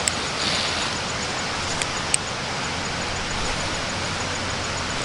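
Steady rushing background noise, with a few small sharp clicks.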